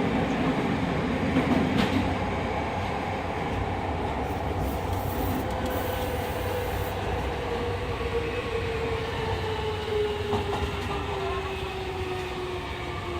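Fukuoka City Subway 2000 series train with its Hitachi hybrid SiC VVVF inverter, heard from inside the car in the tunnel: a steady rumble of wheels on rail under a motor whine that falls steadily in pitch as the train slows.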